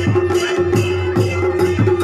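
Chholiya folk-dance band music: drums beating a steady rhythm of about three strokes a second, each stroke dropping in pitch, over a steady held drone.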